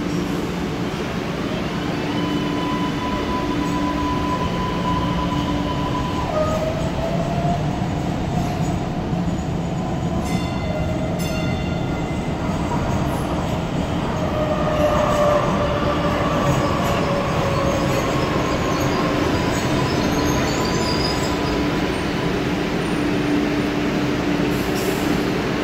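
Subway train running through an underground station, a steady rumble with wheels squealing in several high tones that slide slowly down in pitch. There are a few clacks about ten seconds in.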